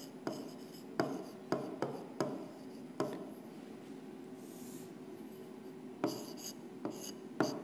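A stylus writing on an interactive display's glass screen: a series of sharp taps and short scrapes as letters are formed, with a quieter pause in the middle.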